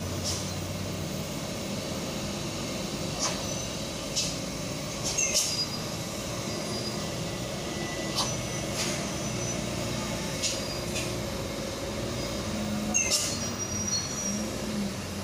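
Heavy diesel trucks running slowly as they manoeuvre round a steep hairpin bend, a steady low engine hum, with about ten short sharp hisses from air brakes scattered through.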